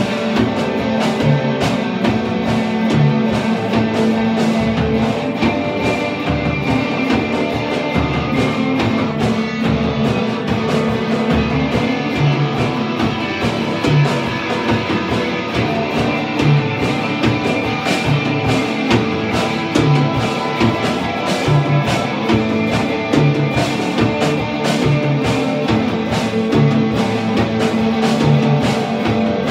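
Live instrumental punk–industrial metal: two electric guitars playing over a Gretsch drum kit, loud and unbroken, with steady drum hits under sustained guitar notes.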